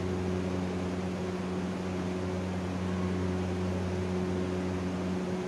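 Steady electric fan running, a low even hum with a rush of air behind it.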